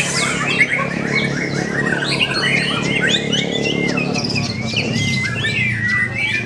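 White-rumped shamas (murai batu) singing loudly in competition: a dense run of overlapping whistles, quick trills and harsh chirps with no break.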